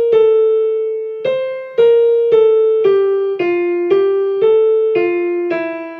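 Piano playing a single-note melody line, the alto part of the choral piece, about two notes a second, each note struck and fading before the next.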